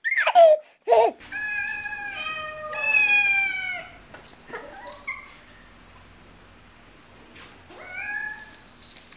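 Domestic cats meowing: three long, level meows run together in the first few seconds, then a short meow about five seconds in and another near the end. A brief loud laugh opens it.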